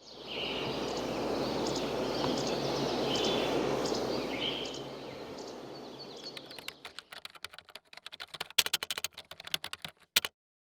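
Outdoor background noise with a few short bird chirps, fading out over about six seconds, followed by a quick, irregular run of clicks like typing on a computer keyboard, ending with a sharper click just past ten seconds in.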